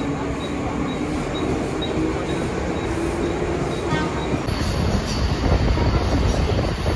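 Mumbai suburban local train at a station platform: a steady rumble of rail noise with a low held tone. About four and a half seconds in, the sound changes to the train noise heard inside a carriage.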